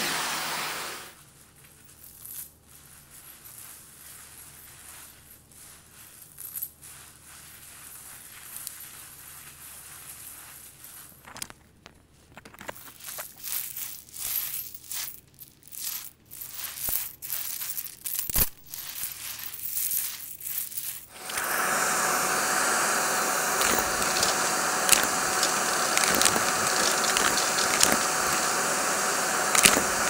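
A vacuum cleaner's motor winds down about a second in. Then coins and glass gems clink and scrape on carpet as they are spread by hand, the clinks thickening toward the middle. About two-thirds of the way through the vacuum starts again and runs steadily, with an occasional sharp click of a coin.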